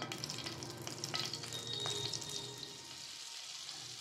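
Butter sizzling as it melts in hot oil in a frying pan, crackling with small pops for the first couple of seconds, then settling to a quieter, steady sizzle as it foams.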